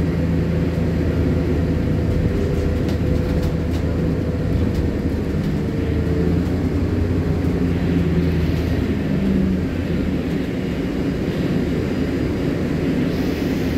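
Scania CityWide city bus under way, heard from inside the passenger saloon: a steady engine drone over road and cabin noise, its note shifting about eight to ten seconds in.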